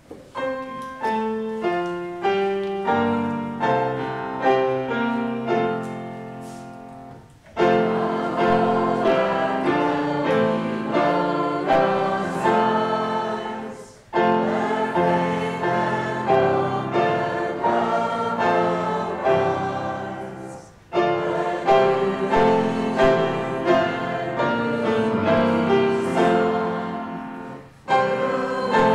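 Congregation singing a short hymn as a call to worship, accompanied on grand piano. The piano plays alone for about the first seven seconds, then the voices come in, in phrases of about seven seconds with brief breaks between them.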